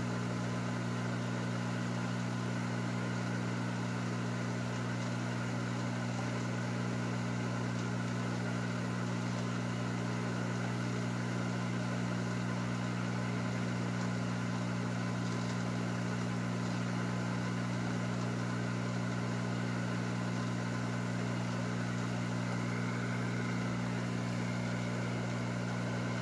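Heat gun blower running steadily on maximum airflow, with a constant low hum and rushing air. It is blowing air at 350 degrees through a wide nozzle onto a soldered Dallas RTC chip to melt the solder on all its pins at once.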